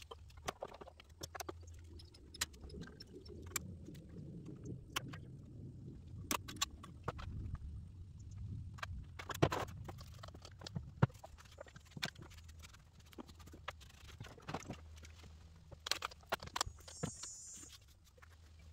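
Scattered light clicks and taps of hands handling wiring connectors and plastic parts in a stripped-out dashboard, over a low rumble for several seconds in the first half. A short hiss near the end.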